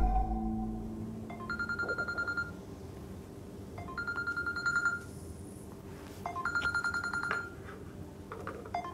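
Mobile phone ringing with an incoming call: three rings, each a rapid trill of high beeps about a second long, coming every two and a half seconds or so.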